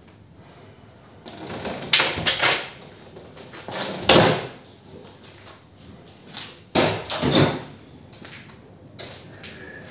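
Plywood shipping crate being pried open and its lid panel pulled off: several loud rasping, cracking bursts of wood and metal fastenings, the biggest about two, four and seven seconds in.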